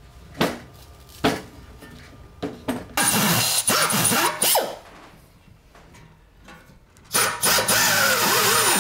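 Pneumatic drill with a countersink bit deburring freshly drilled holes in a steel Mini front subframe. It runs in two bursts of about one and a half to two seconds each, with a high whine and the bit grinding on the hole edges, after a few sharp knocks.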